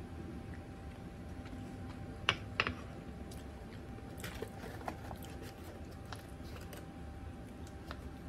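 Two sharp clicks about a quarter second apart, a little over two seconds in, then a few fainter clicks: a ceramic plate and metal fork being set down on a table, with light handling sounds over a faint steady hum.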